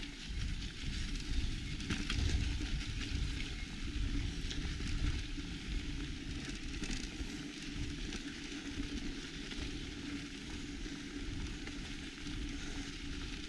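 Mountain bike rolling over a dirt and gravel track, with a crackly hiss of tyres on the loose surface. Wind buffets the camera microphone in an uneven low rumble.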